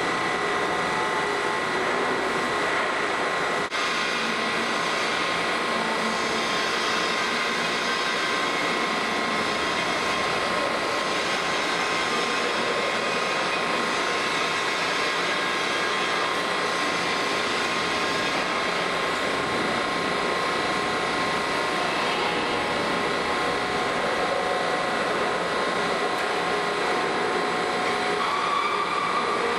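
Large plate rolling machine running as its rolls bend a heavy metal plate: a steady mechanical drone with a constant faint whine.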